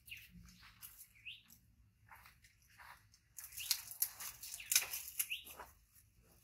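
Plastic wrapping crinkling and tearing as a small packet is unwrapped by hand, getting louder and busier about halfway through. Two short rising squeaks cut through it, one a little over a second in and one near the end.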